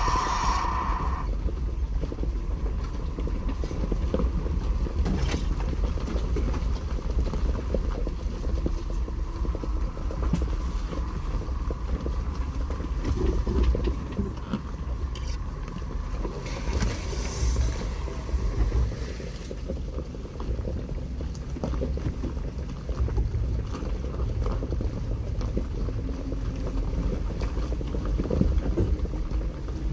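Off-road Jeep crawling slowly over a rocky trail: a steady low engine and drivetrain sound with scattered knocks from tyres and suspension on the rocks, and some wind noise on the microphone. A steady high tone stops about a second in, and there is a brief hiss a little past the middle.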